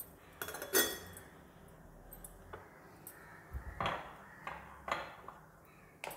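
Light clinks and knocks of a steel spoon and a ghee jar being handled on a kitchen counter, its lid taken off: a handful of scattered taps, the loudest about a second in with a short metallic ring.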